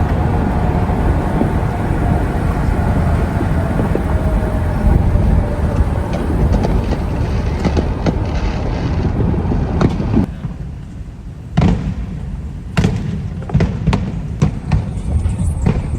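A steady low rumble for about ten seconds, then a string of sharp fireworks bangs, roughly one or two a second.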